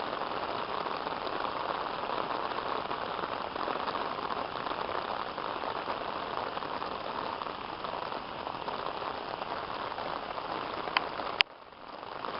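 Heavy rain pouring down steadily. Near the end come two sharp clicks, and then the rain sound suddenly drops away and builds back up.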